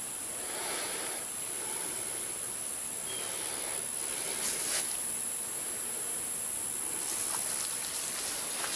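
Rural outdoor ambience: a steady high-pitched insect drone over soft background hiss, with a few brief faint rustles about halfway through and near the end.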